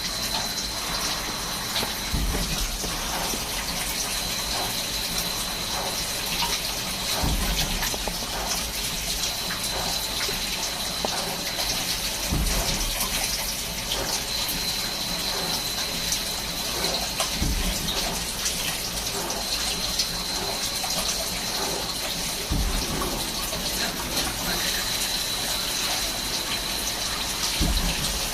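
Swiss-type CNC lathe running a machining cycle: a steady gush of cutting oil or coolant, with a high whine that starts and stops every few seconds and a low thump about every five seconds.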